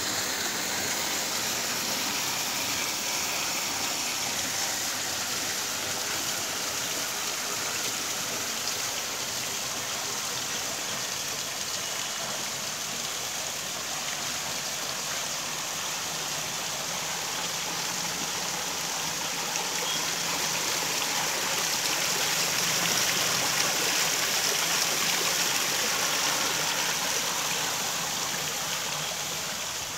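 Water spilling down the tiers of a built natural-stone cascade waterfall, a steady splashing rush that grows louder about two-thirds of the way through, then eases slightly near the end.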